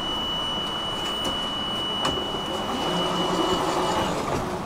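A steady high-pitched electronic beep inside a tram standing at a stop, over the hum of the tram interior. It cuts off about four seconds in.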